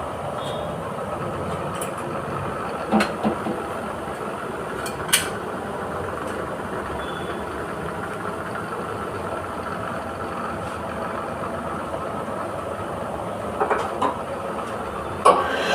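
Wire-cut EDM machine running with a steady mechanical hum, broken by a few short sharp clicks and knocks.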